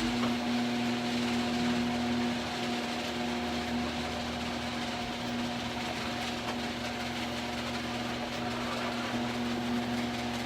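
Electric garage door opener motor switching on suddenly and running steadily, a smooth mechanical hum with a held tone, as it drives the door along its track on a pair of newly replaced torsion springs.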